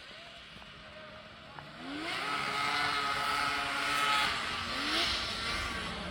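A motor vehicle's engine revving up about two seconds in, holding a steady pitch, then revving up again briefly near the end.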